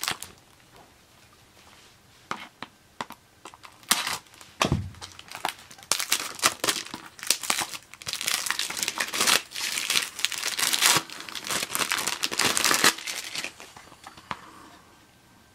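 Clear plastic wrapping on a Blu-ray case being pulled off and crinkled in the hands. There are scattered crackles at first and a soft thump about five seconds in, then several seconds of dense crinkling that stops shortly before the end.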